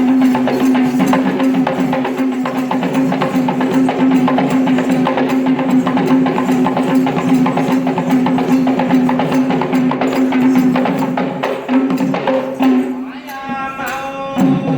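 Traditional Sri Lankan drum music: dense, fast drum strokes over a steady held tone. About thirteen seconds in the drumming drops away and a different pitched sound takes over briefly before the held tone returns.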